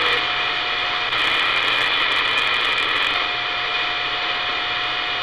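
CB radio receiver hissing with band static on an open channel between transmissions. A steady whistle of a carrier heterodyne comes in briefly near the start, then again about three seconds in, holding to the end.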